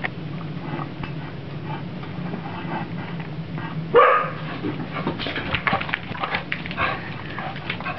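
A pet animal calling: one loud rising whine-like squeal about four seconds in, followed by a quick run of short yips and squeaks, over a steady low hum.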